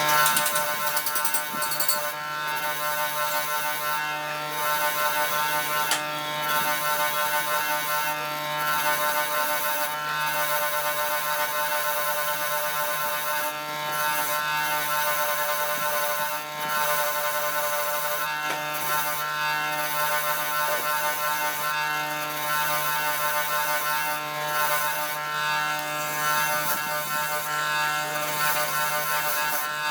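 A motor-driven machine running steadily, a buzzing hum with a rattling, clattering edge that briefly dips now and then.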